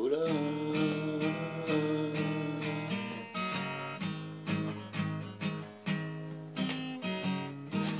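Steel-string acoustic guitar strummed in a steady rhythm as a song's closing bars, getting quieter toward the end. A long held sung note rings over the first three seconds or so.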